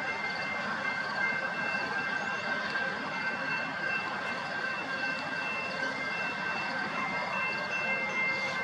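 Level crossing bell ringing steadily as high tones over the rumble of stainless-steel passenger cars rolling past on the rails.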